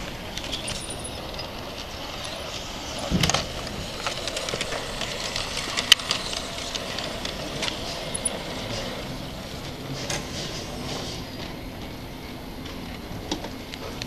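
G-scale model steam train running on its track over a steady background hum, with scattered sharp clicks and knocks. A louder dull thump comes about three seconds in.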